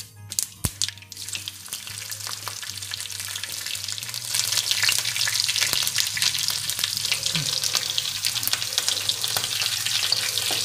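Dense sizzling and crackling like food frying in hot oil, building up over the first few seconds and then steady. A few sharp clicks come at the very start.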